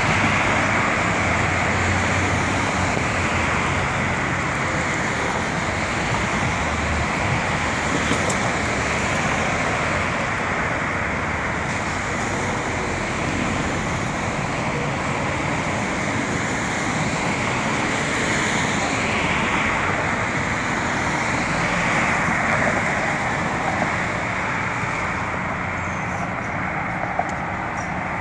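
Steady road traffic noise from cars driving along a multi-lane street.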